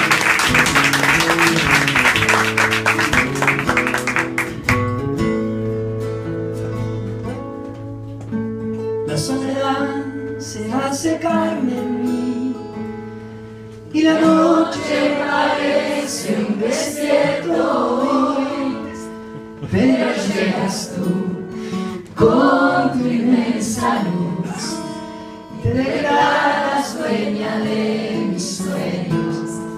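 Audience applause dying away over the first four seconds or so, then acoustic guitars playing with a man singing into a microphone in phrases.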